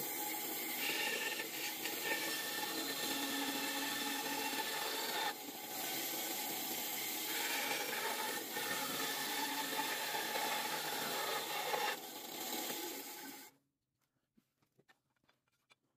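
Benchtop band saw running and cutting a beechwood knife-handle blank, a steady sawing noise that stops abruptly about three quarters of the way in. A few faint handling clicks follow.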